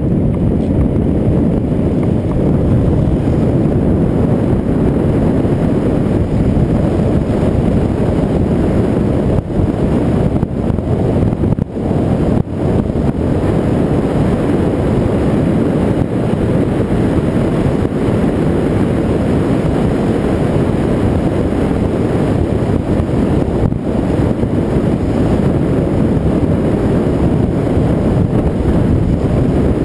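Wind rushing over an action camera's microphone at riding speed downhill: a steady, loud, low rush with a brief dip around eleven to twelve seconds in.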